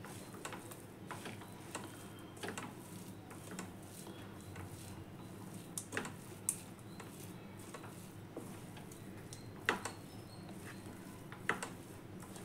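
Faint sound of a hand mixing cooked rice in an aluminium kadai: soft rustling and squishing, with a few sharp clicks against the pan.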